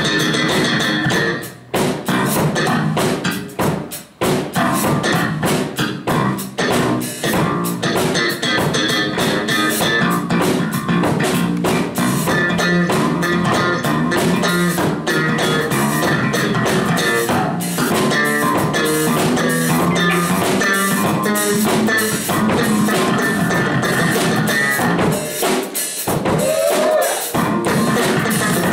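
Live blues band playing an instrumental passage with no singing, the electric bass guitar and drum kit to the fore, the drums keeping a steady beat under the bass line.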